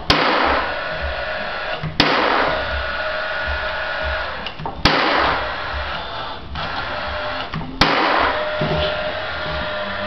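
Cordless finish nailer firing nails into a cedar birdhouse roof: four sharp shots about two to three seconds apart, each followed by a steady whir that dies away after a couple of seconds.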